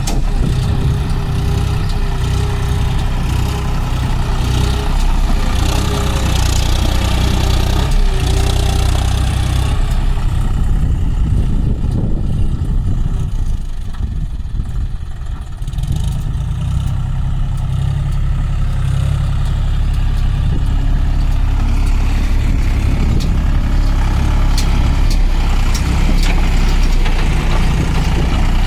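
John Deere 5045 tractor's three-cylinder diesel engine running steadily while pushing soil with a front dozer blade. The engine sound drops for a few seconds about halfway through as the tractor moves farther off, then comes back up.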